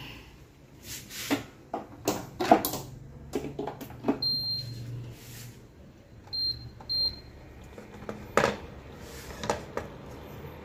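Hanabishi induction cooker's control panel beeping as its buttons are pressed: one beep about four seconds in, then two short beeps half a second apart about two seconds later. Scattered knocks and clatters of the pan and cooker being handled, the loudest about two and a half and eight and a half seconds in, over a steady low hum.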